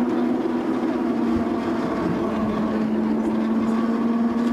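Narrow-gauge railway coach running along the line: a steady hum over a low rumble, rising a little in pitch about two seconds in.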